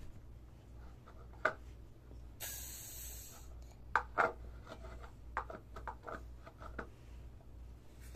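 Scattered soft scrapes and clicks over a steady low hum, with a brief hiss about two and a half seconds in.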